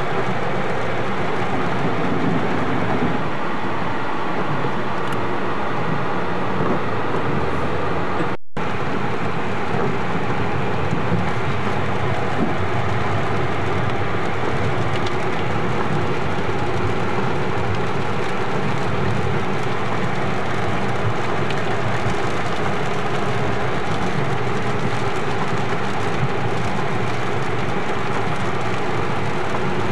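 Steady road noise inside a moving car on a wet road: tyres hissing on the wet pavement over the engine and road rumble. The sound cuts out for an instant about eight seconds in.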